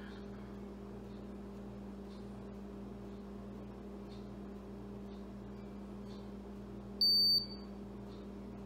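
Meade AutoStar II hand controller giving one short, high-pitched beep about seven seconds in. The beep signals that the telescope has finished slewing to its alignment star and is waiting for ENTER. A steady low hum runs underneath.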